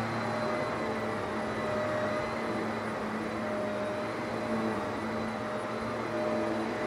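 Vacuum cleaner running steadily: a constant motor hum and whine over the rush of air.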